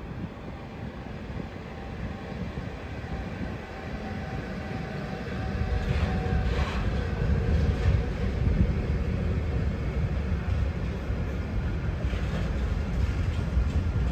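Train running, its low rumble growing louder about five seconds in and holding steady.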